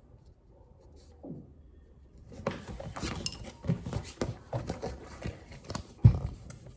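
Small hard objects clicking and clinking as they are handled and set down on a surface, starting about two seconds in, with a louder knock about six seconds in.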